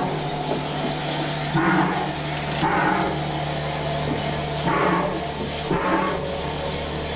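Steam hissing steadily in the cab of a 1922 Baldwin 2-8-2 steam locomotive, over a steady low hum, with louder surges of hiss every second or two.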